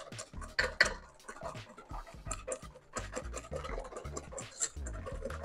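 Wire whisk beating eggs and sugar by hand in a stainless steel bowl: rapid, rhythmic scraping and clicking of the wires against the metal bowl, several strokes a second.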